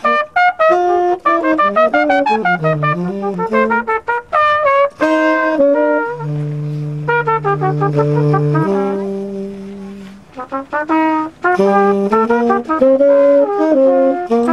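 Trumpet and saxophone improvising jazz together in quick melodic runs. About six seconds in, the two settle on long held notes in harmony for a few seconds, then ease off and return to fast lines near the end.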